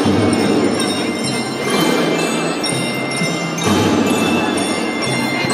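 Children's drum band playing: drums with high, ringing tones carried over them in a steady march.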